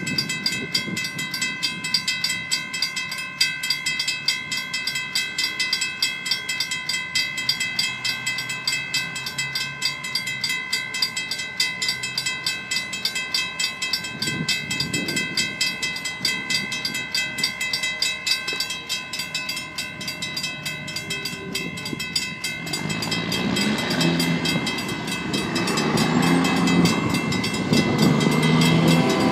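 Two mechanical railroad crossing bells ringing with rapid, steady strokes at an activated crossing. About three-quarters of the way through, the horn of the approaching Union Pacific freight locomotive comes in and grows louder as the train nears.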